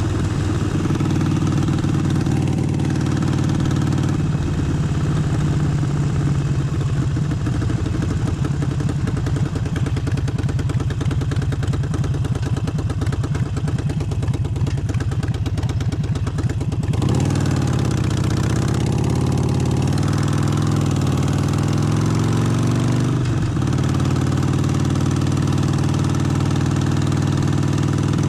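Harley-Davidson Forty-Eight's air-cooled 1200 cc V-twin engine running at a steady pitch. About two-thirds of the way through, the engine note rises and falls for several seconds as the throttle changes, then settles back to a steady pitch.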